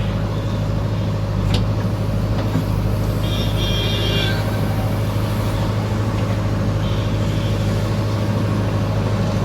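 JCB 3DX backhoe loader's diesel engine running steadily at idle. A click about a second and a half in, and a short high-pitched beep about three seconds in.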